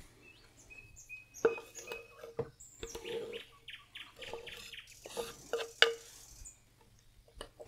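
A knife scraping chopped dill and green onion off a wooden cutting board into a glass bowl, with a few sharp knocks of knife and board and a stretch of scraping in the middle.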